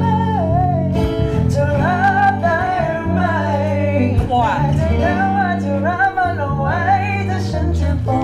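A Thai pop ballad sung by a voice with vibrato over acoustic guitar accompaniment.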